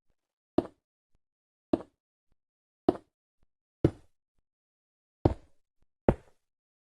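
Sharp knocks, six of them, unevenly spaced about a second apart, each short and dying away quickly.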